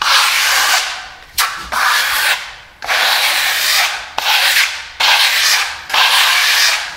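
Plastering trowel scraping across a wall in repeated sweeping strokes, about one a second, as a thin first coat of pearlescent silk-type decorative plaster is spread and scraped back thin.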